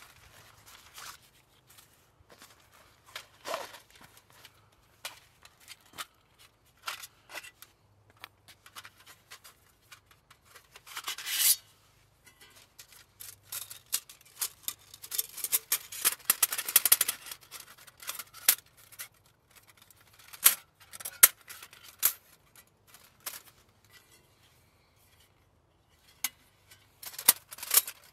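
Thin titanium plates of a Bushcraft Essentials Bush Box folding stove clinking and scraping as it is drawn out of its fabric pouch and unfolded by hand. A longer scrape comes about eleven seconds in, then a dense run of clicks and rattles, and later a few sharp single clicks as the panels are fitted together.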